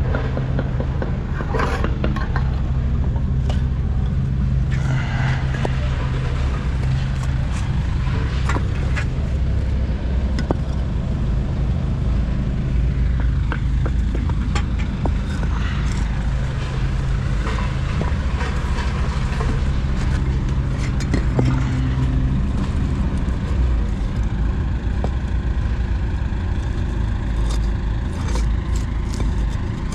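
A vehicle engine running steadily, with scattered clicks and scrapes over it.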